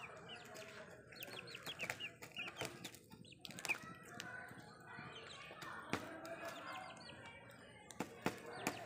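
Young Kadaknath chickens making high, short calls with a falling pitch, repeated throughout, with scattered sharp taps of beaks pecking grain off a plastic lid.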